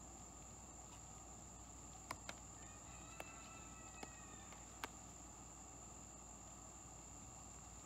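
Faint, steady, high-pitched insect chorus, typical of crickets, with a few sharp light clicks about two to five seconds in.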